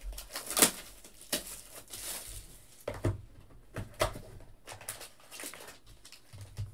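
An Obsidian football trading-card hobby box being handled and opened by hand: an irregular run of cardboard taps, scrapes and rustling.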